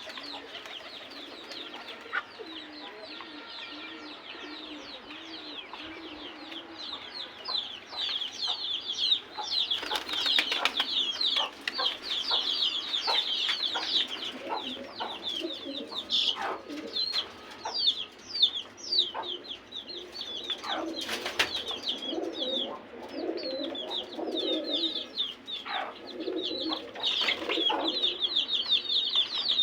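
Domestic pigeons cooing, low and wavering, over a constant rapid high-pitched chirping of other small birds.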